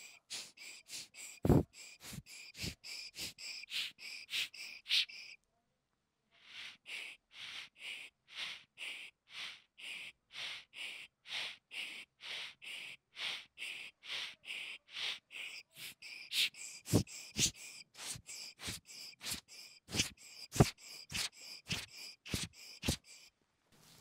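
Ear-cleaning tool work close to the ear: short ringing ticks repeated evenly about three times a second, with a brief break about five seconds in and a few heavier taps in the second half.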